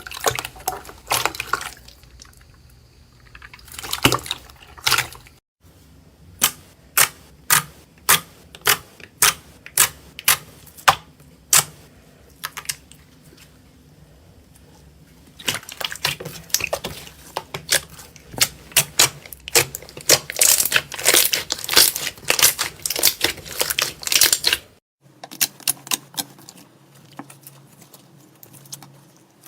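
Slime being squeezed and poked by hand, giving sharp wet clicks and pops, at times in an even run of about two a second and at times in a dense crackle. The sound breaks off abruptly twice as one clip gives way to the next.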